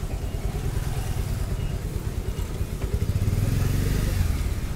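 Road traffic rumbling, with a vehicle engine passing close and getting louder about three seconds in.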